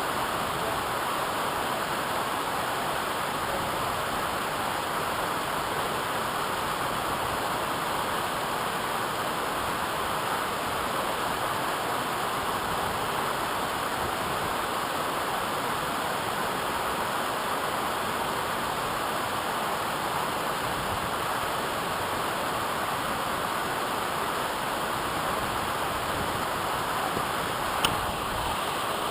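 Steady, unbroken rush of falling water from a waterfall, with a single short click near the end.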